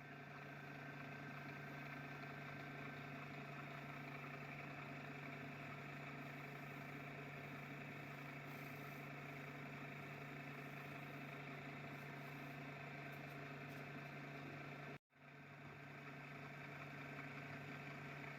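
A machine running with a steady low hum that does not change in pitch or speed, cutting out for a moment about fifteen seconds in.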